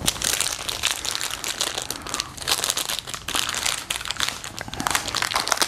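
Packaging wrap crinkling and crackling continuously as a new replacement fuel pump is unwrapped by hand.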